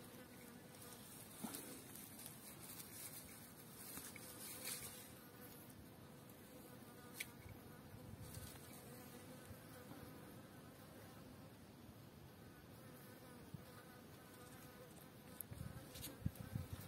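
Faint, steady buzzing of a flying insect, with a couple of soft ticks and a few low rustles near the end.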